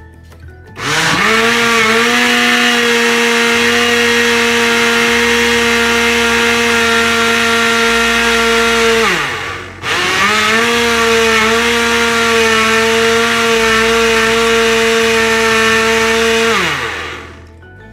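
Countertop electric blender blending a thin semolina-and-flour pancake batter: the motor spins up with a rising whine about a second in, runs steadily, winds down after about eight seconds, then starts again straight away and runs another seven seconds before winding down near the end.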